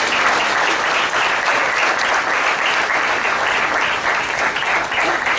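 Audience applauding, a dense steady clapping from many hands.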